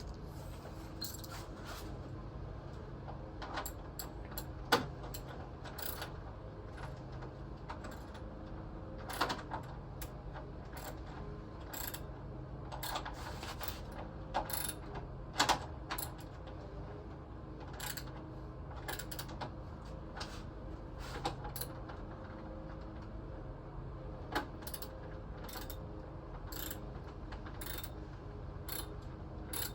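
Hand tools working on car parts: irregular clicks, clinks and a few sharper knocks of metal, over a steady low hum.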